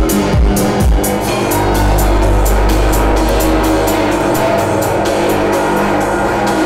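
Techno dance music: a steady ticking hi-hat pattern over deep kick drums and a low bass line that settles into a held bass note about a second and a half in.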